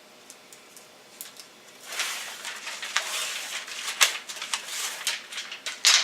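Aluminum foil duct tape and its paper backing being handled and peeled: a few faint ticks, then from about two seconds in a crinkling rustle with sharp crackles.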